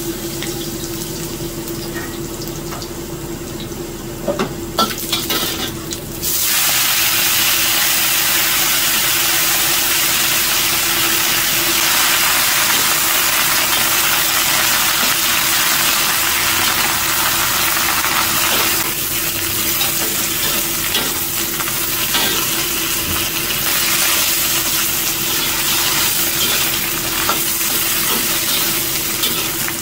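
Stir-frying in a wok with a metal spatula. Garlic sizzles gently in oil at first, with a few clicks of the spatula against the wok. About six seconds in the sizzle jumps much louder and stays dense as napa cabbage and wood ear mushrooms are tossed in the hot wok, over a steady low hum.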